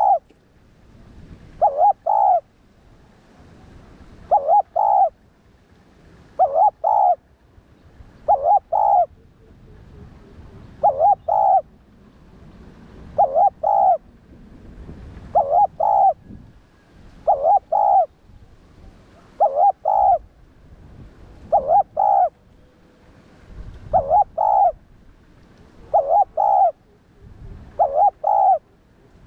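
Spotted dove cooing its song over and over: a short phrase of a few coos about every two seconds.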